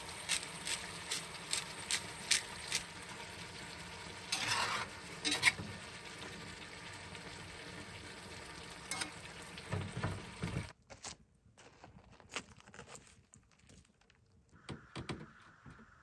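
Food sizzling in a frying pan, with sharp utensil clicks and scrapes over the steady sizzle. The sizzle stops suddenly about eleven seconds in, leaving only scattered light clicks.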